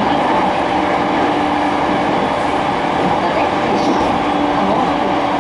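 Inside a JR East E231-series motor car running at speed: a steady hum of constant pitch from the Hitachi IGBT-VVVF inverter and MT73 traction motors over the continuous rumble of wheels on rail.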